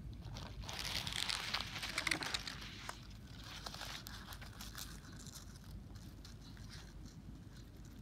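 Rustling and crinkling of rice-plant leaves brushed against the recording device, with scattered small clicks. It is loudest in the first three seconds, then fades to faint crackling.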